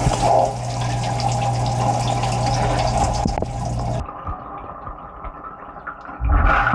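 Dishwasher wash cycle heard from inside the tub: water spraying over a steady pump motor hum. About four seconds in, both cut off abruptly, leaving a quieter stretch, and a low thump sets off louder sound again near the end.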